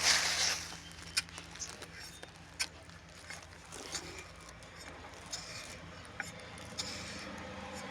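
A short scraping rush right at the start, then scattered light clicks and taps.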